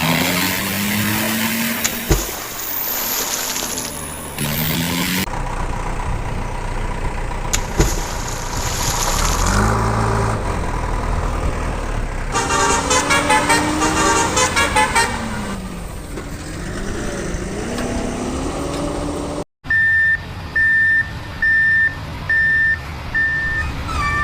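Truck sounds: an engine running under gliding horn-like tones, with a quick warbling chirp partway through. After a sudden cut near the end, a reversing beeper sounds steady, evenly spaced beeps.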